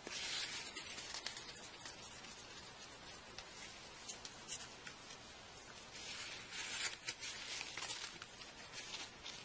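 Cloth wiping the phone's LCD panel clean: soft rubbing swishes, strongest near the start and again about six to seven seconds in, with a few faint clicks.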